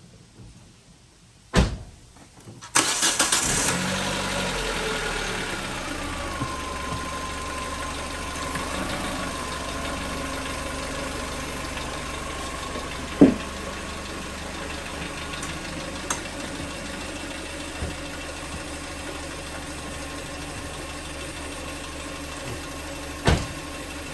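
A 2005 Hyundai Elantra's 2.0-litre four-cylinder engine, freshly filled with oil, starting about three seconds in, catching at once and settling into a steady idle, with a whine that falls in pitch over the first few seconds as the fast idle comes down. A sharp click comes just before the start, and a few single knocks come later.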